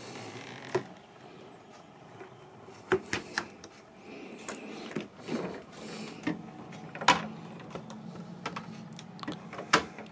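Doors of a stainless-steel fridge-freezer being opened and shut by hand: sharp latch clicks and door knocks several times, a few seconds apart. A low steady hum comes in about halfway.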